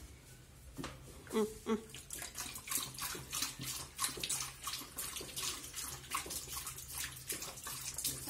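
A Doberman drinking from a running washbasin tap: water pours into the sink and splashes irregularly as the dog laps at the stream. Two short pitched sounds come about a second and a half in.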